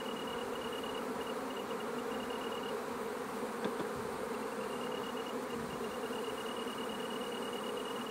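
Many honeybees humming steadily around a hive, the even drone of their wingbeats.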